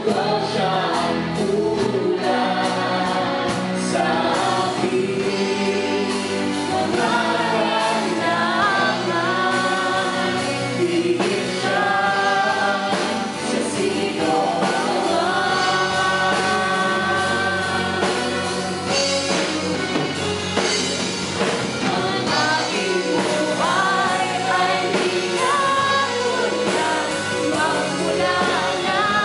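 Live worship band playing a Tagalog praise song: female and male singers on microphones over electric bass, drums and keyboard, amplified in a hall.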